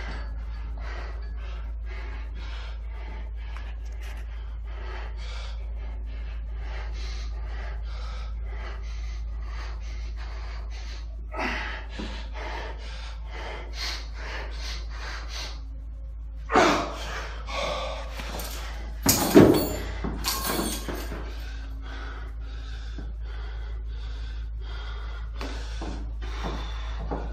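A man breathing hard through a set of bodyweight dips, quick short breaths at first, then several louder gasping breaths around the middle, over a steady low hum.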